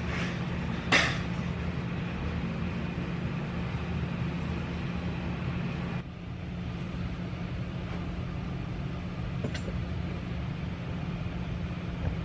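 Steady low rumble with a constant hum, and one sharp click about a second in.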